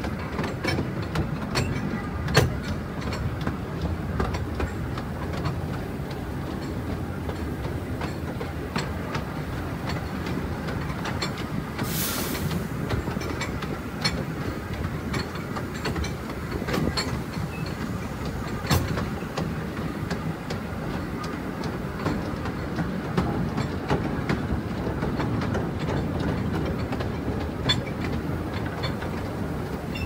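Taipingshan forest railway's small tourist train (bong-bong car) running along its track: a steady low rumble with frequent sharp clicks of the wheels over the rail joints, and a brief hiss about twelve seconds in.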